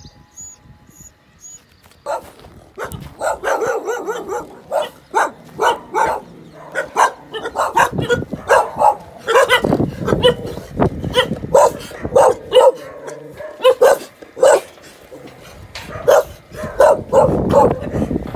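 A group of dogs barking over and over, many barks overlapping, starting about two seconds in.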